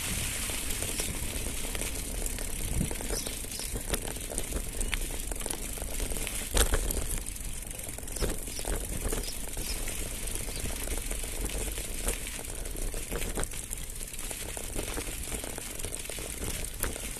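Mountain bike rolling downhill on a dirt and gravel track: tyres crunching over grit while the bike rattles, with scattered sharp knocks, the loudest about six and a half seconds in.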